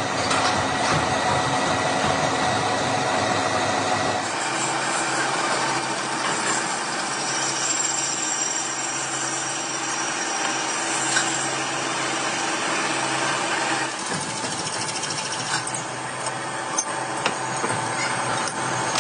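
Lathe running as a boring bar cuts a tractor differential case: a steady machine drone mixed with cutting noise. The tone changes abruptly about four seconds in and again near fourteen seconds.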